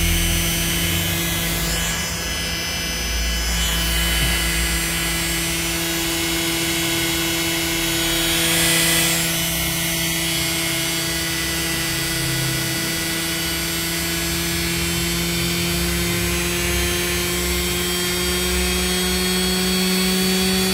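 Salvaged washing machine motor running under dimmer speed control: a steady whine that slowly rises in pitch as the motor speeds up.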